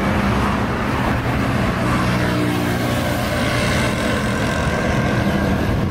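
Road traffic: steady engine noise of passing motor vehicles, with one vehicle passing close about two to four seconds in, its engine note shifting as it goes by.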